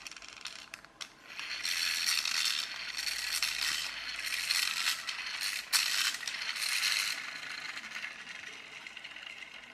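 The plastic gear train of a press-and-go toy car rattles and whirrs as its toothed arm is pressed down to wind the spring and the rear wheels spin free. It comes in several surges and dies away over the last couple of seconds.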